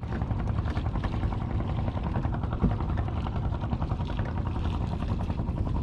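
A small fishing boat's motor running steadily, a fast even pulsing with a low rumble.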